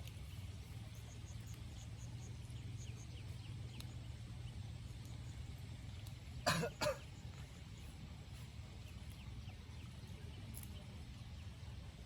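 An animal calls twice in quick succession about halfway through, two short loud cries over a steady low background rumble.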